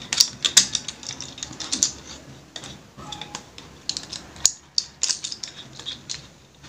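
Irregular plastic clicks and taps from a plastic handheld smartphone cage rig being handled, as a phone is pressed into its adjustable phone holder.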